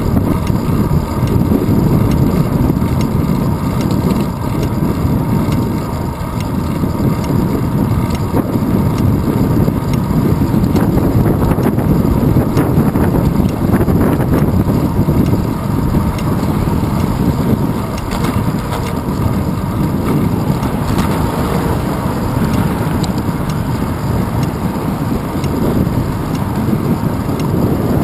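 Steady wind buffeting and road rumble picked up by a handlebar-mounted GoPro Hero 2 on a bicycle riding along an asphalt road.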